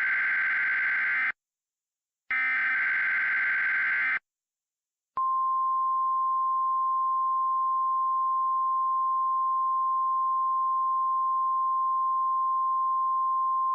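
Emergency Alert System SAME header: two bursts of rapid two-tone digital data warbling, each under two seconds, about a second apart. About five seconds in, the NOAA Weather Radio 1050 Hz warning alarm begins, one steady high-pitched tone held without a break. Together they are the signal that opens an emergency alert broadcast.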